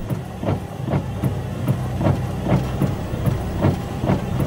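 Pilot boat under way heard from the wheelhouse: a steady low engine rumble with regular knocks about two and a half times a second.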